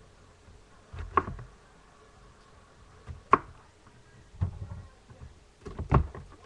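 A few separate sharp knocks, four of them at uneven spacing, some with a dull low thud alongside.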